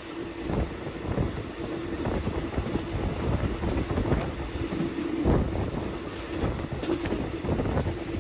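Passenger train running along the line, heard from an open carriage window: a steady rumble and low hum of the wheels on the rails, with irregular knocks and clatters from the wheels.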